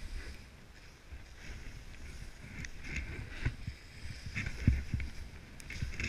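Snowboard sliding and carving through powder snow: a hiss that swells into swooshes on the turns, with wind rumble on the microphone and a few dull knocks, the loudest just under five seconds in.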